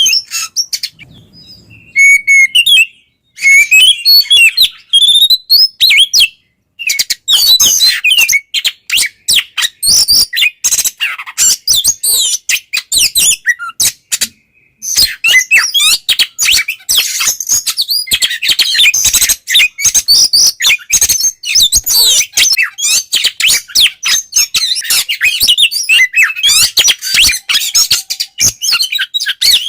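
Oriental magpie-robin (kacer) singing loudly and almost without a break in its full 'ngeplong' song: fast runs of varied chirps, whistles and trills, broken by a few short pauses.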